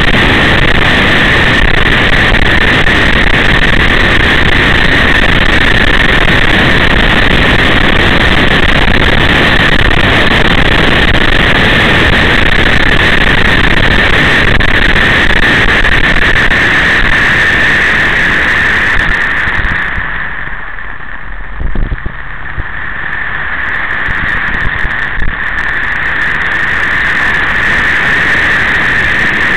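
A moving vehicle: a loud, steady rushing noise of engine and travel. It eases off for a few seconds about two-thirds of the way through, then rises again.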